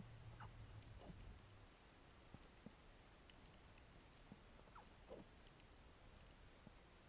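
Near silence: faint underwater ambience with scattered small clicks and crackles, and a low hum that stops a little under two seconds in.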